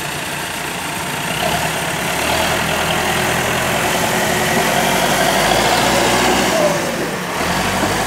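Diesel engine of an Escorts backhoe loader running, growing louder about a second and a half in and dipping briefly near the end.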